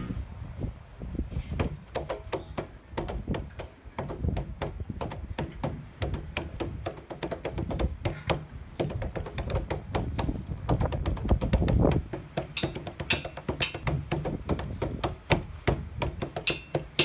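Scrap objects played as improvised percussion: many irregular sharp taps and knocks on a plastic barrel and on metal bars struck against rusty machinery. Some strikes in the later part ring like metal.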